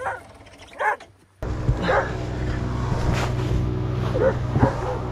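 Dog barking in short, repeated yelps. About a second and a half in, a steady low engine drone starts abruptly underneath, and the barking goes on over it.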